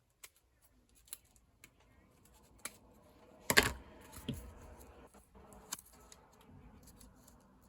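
Scissors snipping at the edge of a folded paper signature: scattered sharp clicks, with one louder knock about three and a half seconds in.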